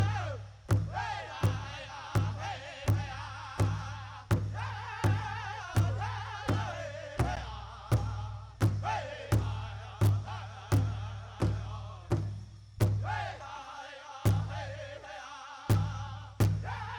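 Powwow drum group performing a chicken dance song: a steady drumbeat about every three quarters of a second under high, wavering group singing. Near the end the drum drops out for a moment, then comes back in.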